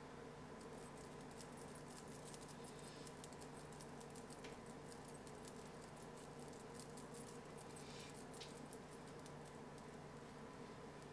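Makeup sponge dabbing foundation onto the face: faint, quick little ticks, thickest in the first half and again about eight seconds in, over a low steady hum.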